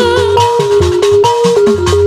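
Sundanese jaipong-style instrumental music: an electronic keyboard playing a melody in held, stepping notes over kendang drums, whose low strokes slide down in pitch.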